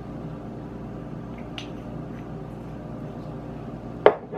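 Steady low room hum with a faint tick or two, then near the end a single sharp knock as a glass hot sauce bottle is set down on a wooden countertop.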